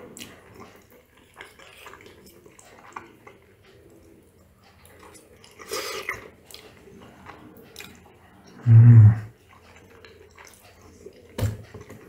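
Eating sounds: a spoon and fork clicking lightly against a ceramic plate, and chewing. About nine seconds in there is a short, loud, low hummed 'mmm'.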